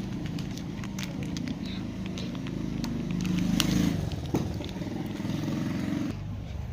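A small engine running steadily, with scattered light clicks and knocks over it; the engine sound drops away about six seconds in.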